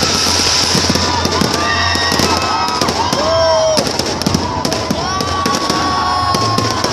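Aerial fireworks going off in quick succession: dense crackling and popping, with several whistling tones that bend up and down through the barrage.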